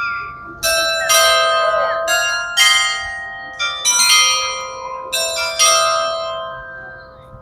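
Tower bells playing a slow melody, about nine struck notes of different pitches, each ringing on and overlapping the next, with the last note dying away near the end.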